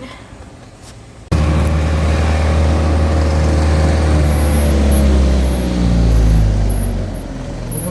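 Motor vehicle engine running loud, starting abruptly about a second in, with a low note that slowly falls over several seconds.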